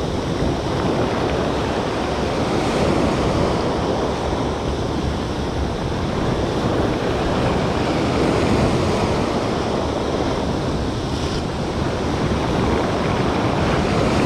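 Sea surf breaking and washing over the rocky shore close by, a continuous loud rush, with wind rumbling on the microphone.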